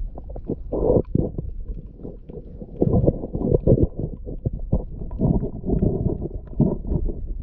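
Muffled water sloshing and irregular dull knocks, recorded with the camera under the water while snorkelling over coral.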